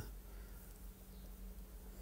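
Quiet room tone: a faint steady low hum under light hiss, with no distinct handling sounds.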